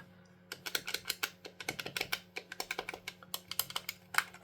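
Plastic buttons and D-pad of a freshly cleaned Sega Mega Drive (Genesis) three-button controller being pressed over and over in quick succession, a rapid run of light clicks, checking that the buttons now respond properly.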